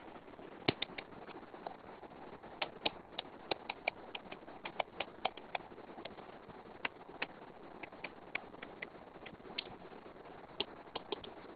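A stylus tip tapping and clicking on a tablet's glass screen while handwriting: a run of light, irregular ticks over a steady low hiss.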